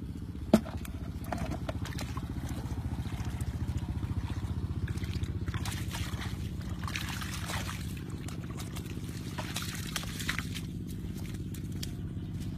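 A small engine running steadily at a low, even pitch, with water sloshing and splashing over it, loudest in two spells in the second half. A single sharp click sounds about half a second in.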